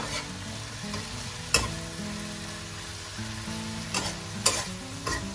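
A spatula stirs chopped cabbage frying in a wok, with a light sizzle and several sharp knocks of the spatula against the pan. The loudest knock comes about a second and a half in, and three more come close together near the end.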